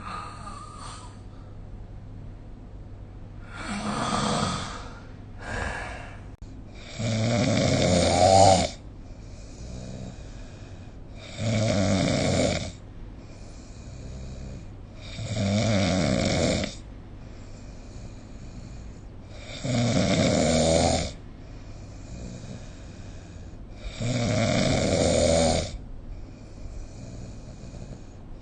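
A person snoring: a loud snore roughly every four seconds, each lasting one to two seconds, with quieter breaths between them.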